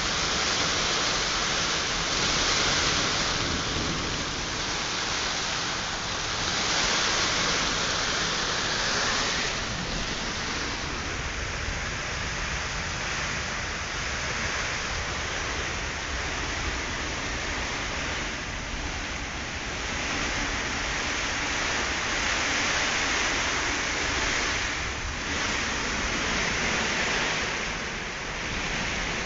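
Heavy rain in a nor'wester storm: a steady hiss that swells and eases every few seconds as the downpour comes and goes in gusts.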